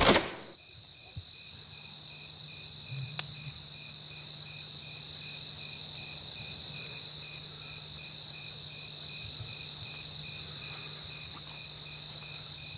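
Crickets chirping in an even rhythm of about two chirps a second, over a faint low hum.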